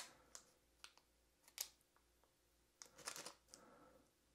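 Faint, scattered clicks and rustles of small screws and hardware being picked through by hand, with a small flurry about three seconds in.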